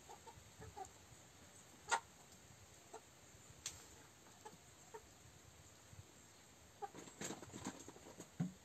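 Chickens clucking faintly now and then, with a couple of sharp clicks, and a quick run of clucks near the end.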